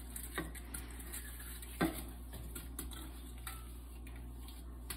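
A stainless steel mixing bowl knocking and clinking against the rim of a stockpot as frozen octopus is tipped into the broth: a few sharp knocks, the loudest about two seconds in, over a steady low hum.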